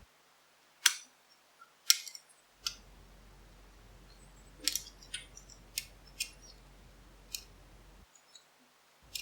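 Metal lock picks clicking and scraping inside an old lever padlock as its levers are worked: about eight short, sharp clicks at uneven intervals.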